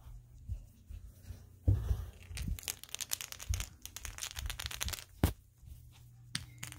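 Rustling and crinkling of clutter being handled and moved, with a soft thump about two seconds in, a dense run of crackling for about three seconds, and one sharp click near the end.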